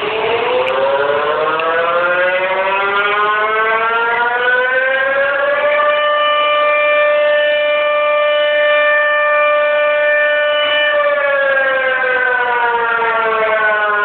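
Tsunami warning siren (civil defense siren) sounding: its pitch rises over the first six seconds or so, holds a steady wail for about five seconds, then winds down near the end.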